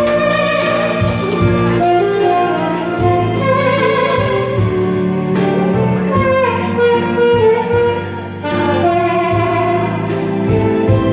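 A backing track plays an instrumental passage of a Korean ballad, with a sustained lead melody and no singing.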